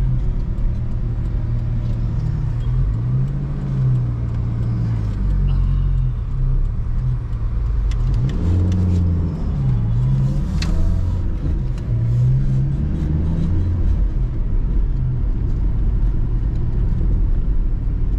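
Car engine and road noise heard from inside the cabin while driving at low speed, the engine note rising and falling several times as the car speeds up and slows for turns.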